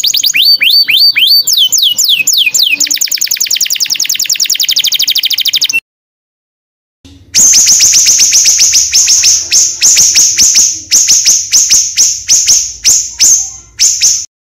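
Small songbird singing a loud, fast chattering song: a run of downward-sweeping whistled chirps turning into a rapid trill, then a break of dead silence of over a second, then another rapid series of sharp, high chirps.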